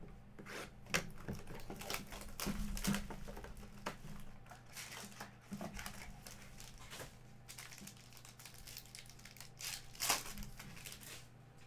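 Plastic wrapping on a basketball trading-card box and its pack being slit, crinkled and torn open by hand, in irregular rustles and rips, with a louder tearing about ten seconds in.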